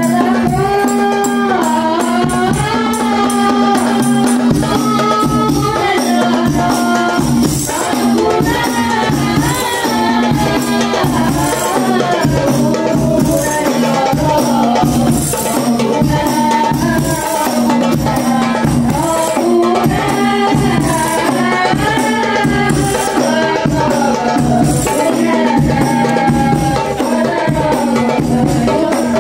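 Hadrah Banjari ensemble: a man singing sholawat through a microphone over rapid interlocking frame drums (terbang), tambourine jingles and a mallet-struck bass drum.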